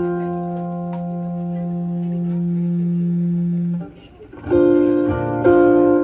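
Amplified electric guitar and bass: a held chord rings out and is cut off about four seconds in. Two fresh chords are then struck about a second apart.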